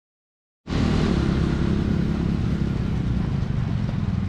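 Dead silence for a moment, then a nearby engine running steadily from under a second in.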